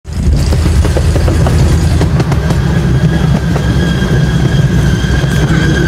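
Miniature railway train running: a steady low rumble of wheels on the track with scattered clicks, and a high, steady wheel squeal that sets in and grows louder from about halfway through.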